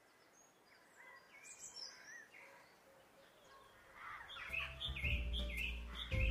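Cartoon birdsong: faint scattered chirps at first, then a quicker run of high chirps from about four seconds in. Low, held music notes come in under the chirps around the same time.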